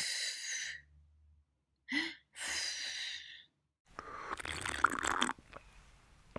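Breathy sipping and slurping sounds for a baby doll drinking from a toy teacup: a few short sips, then a longer, rougher slurp about four seconds in.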